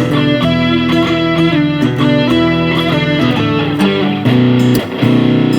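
Guitar playing the instrumental introduction of a song, chords struck in a steady rhythm.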